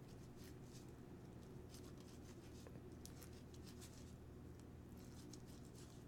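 Faint, irregular scratches and small ticks of a serrated knife cutting through grapefruit flesh and membranes along the segment lines, over a low steady hum.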